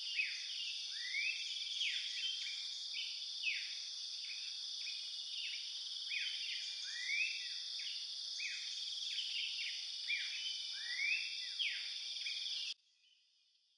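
Forest ambience: a steady high-pitched insect drone with many short rising and falling bird calls over it. It cuts off abruptly near the end.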